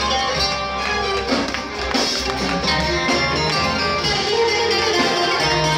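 Live Greek popular music played loud by a band: plucked strings lead over a continuous bass line.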